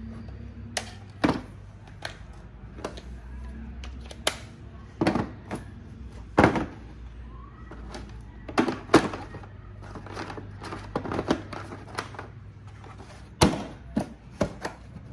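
Irregular clicks and knocks of a cordless drill, its battery and charger being handled and set into a hard plastic carrying case, about a dozen sharp strikes with the loudest near the end, over a faint low hum.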